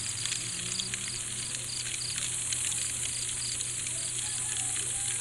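Night insect chorus: a steady high-pitched hiss of insects, with a cricket chirping in a regular pulse of about three chirps a second, and scattered faint clicks.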